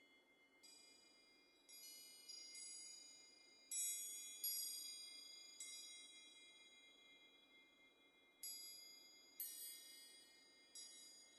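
Faint, high-pitched chime tones, struck about nine times at uneven intervals, each ringing and slowly fading.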